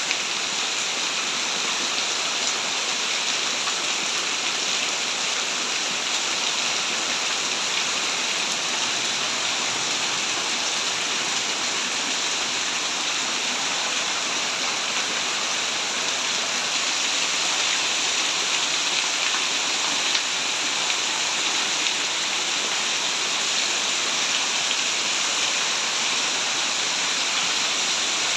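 Heavy tropical rain pouring down steadily, with runoff streaming off the roof eaves and splashing onto the ground.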